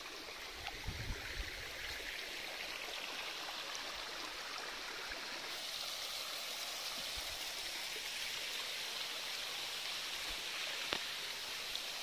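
Shallow rocky stream running and trickling over stones. The rush grows louder about halfway through, where the water spills down a rock face.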